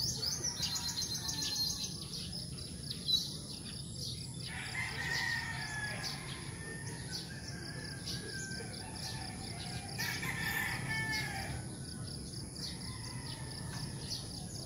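A rooster crowing twice, about four and a half seconds in and again about ten seconds in, over continual rapid chirping of small birds. A brief sharp sound stands out about three seconds in.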